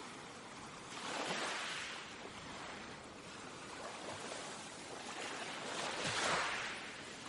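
Sea waves surging and washing against a rock, with two larger swells, one about a second in and a louder one about six seconds in.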